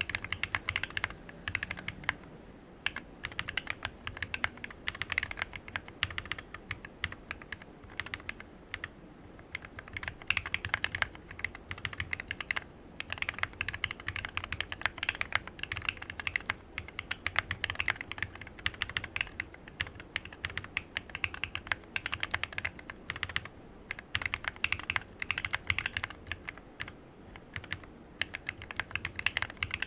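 Continuous fast typing on a Planck Rev6 mechanical keyboard with lubed, filmed Cobalt POM linear switches, PBT keycaps and a steel plate in an aluminium case: rapid clacky keystrokes with a low thock under them and no switch click.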